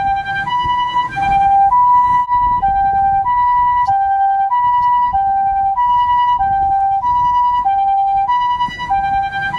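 Japanese ambulance siren sounding its two-tone "pee-poh" call: a higher and a slightly lower tone alternate, each held steady for about half a second, over a low rumble.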